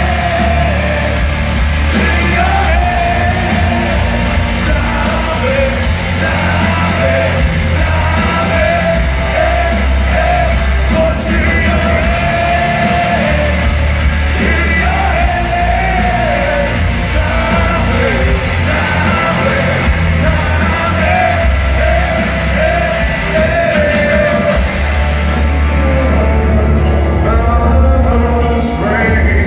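Heavy rock band playing live in an arena, with a male lead vocal sung over loud bass, guitars and drums, echoing in the hall.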